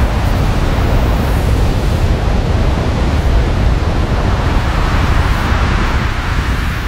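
Strong high-altitude mountain wind blowing steadily, a dense rush over a deep low rumble, swelling and easing in slow gusts.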